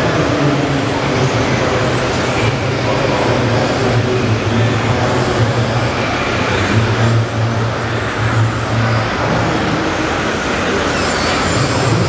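Simulated diesel truck engine from a radio-controlled model tipper truck's sound module, running steadily at low revs as the model creeps forward, with a brief dip in the drone about two thirds of the way through.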